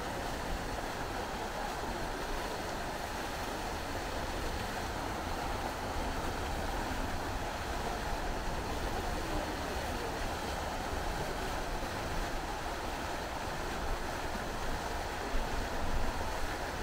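A steady rushing noise, with low rumbling from wind buffeting the microphone that grows stronger near the end.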